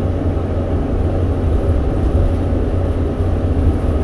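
Steady low drone of a 2008 New Flyer C40LFR transit bus's engine and drivetrain, heard from inside the passenger cabin.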